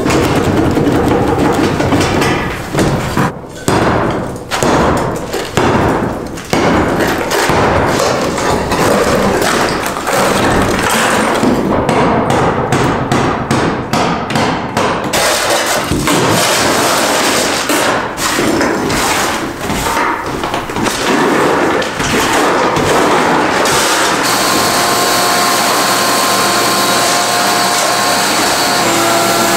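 Broken brick and mortar rubble knocking and clattering as it is pried loose with a bar and dropped into plastic buckets. Past three-quarters of the way in, a wet/dry shop vacuum starts and runs steadily with a whine.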